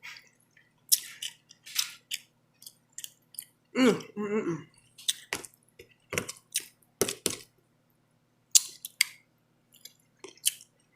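A person chewing soft food close to the microphone, with a run of short, wet mouth smacks and clicks. About four seconds in there is a brief hum from the voice.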